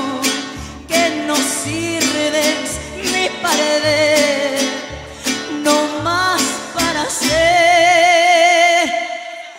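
Live mariachi band playing a ranchera. Guitars, vihuela and guitarrón keep a strummed, plucked rhythm under violins while a woman sings, holding one long wavering note near the end.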